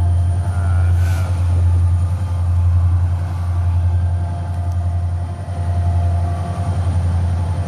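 Diesel locomotive engine running with a steady deep rumble.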